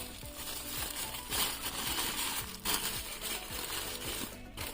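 Wrapping paper crinkling and rustling in several bursts as a small package is unwrapped by hand.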